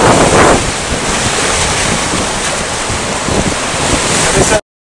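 Sea surf breaking and washing against the rocks below, with wind buffeting the microphone. The rush swells briefly at the start, then runs on evenly until it cuts off suddenly near the end.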